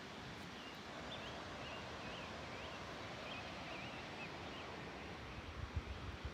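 Steady rush of a distant waterfall, with a bird singing faintly over it in a run of short chirps. Wind buffets the microphone near the end.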